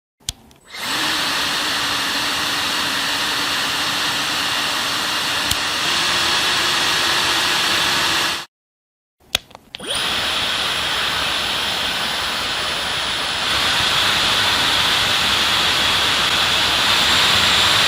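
Two hair dryers, a Uwant H100 and a Dyson HD15, run one after the other, each switched on with a click. The first blows with a low motor hum under the airflow that rises slightly in pitch near the middle. After a short break the second blows with no low hum and a higher, hissier sound that gets louder partway through.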